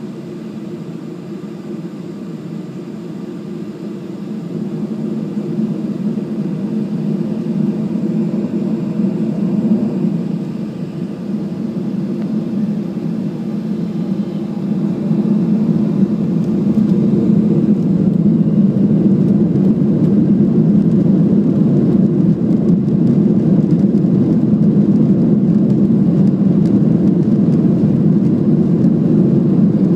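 Jet engines of a WestJet Boeing 737 heard from inside the cabin, a low rumble that grows steadily louder over the first half as thrust builds for takeoff, then holds steady and loud.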